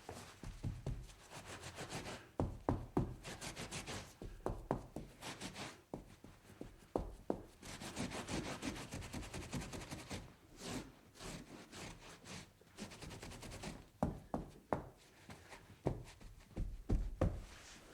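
Cleaning up a spill: a cloth or sponge rubbing and scrubbing a hard surface in quick strokes, with irregular knocks of objects being moved or set down.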